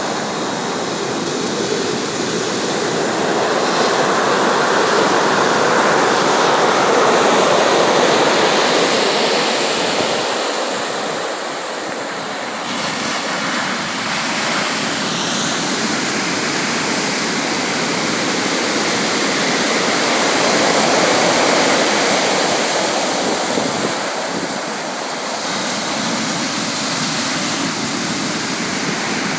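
Ocean surf: waves washing onto the shore in a steady rush that swells to a peak about a quarter of the way in and again about two thirds of the way in, easing between.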